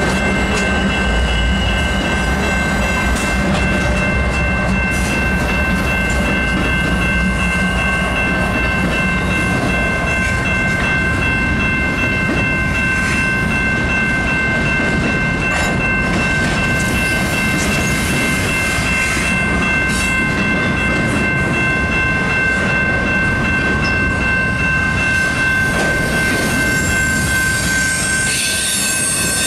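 Canadian Pacific double-stack intermodal freight train rolling past: a steady heavy rumble of wagon wheels on the rails with some clickety-clack, heaviest in the first couple of seconds as the last locomotive goes by. Several steady high ringing tones sound over it throughout, and a hissing squeal rises near the end.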